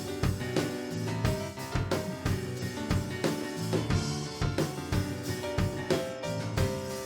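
Instrumental break in a worship song: a drum kit keeps a steady beat with bass drum and snare under sustained chords from the band.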